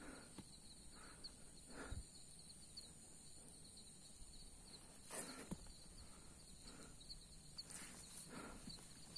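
Faint footsteps of a hiker on a dirt trail, a few soft, irregular steps, over a steady high chirring of insects.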